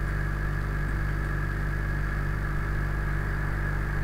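Steady low hum with a thin, high, steady whine above it, unchanging throughout.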